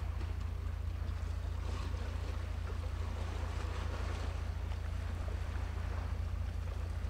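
Steady wind rumble on the microphone over a soft hiss of waves on the water, with no distinct event.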